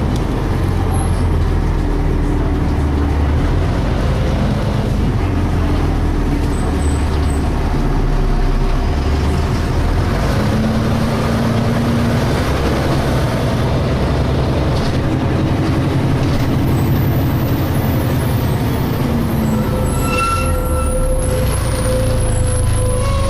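DAF SB220 single-deck bus heard from inside the saloon while under way: steady engine and drivetrain noise with tones that come and go. Higher-pitched tones appear near the end.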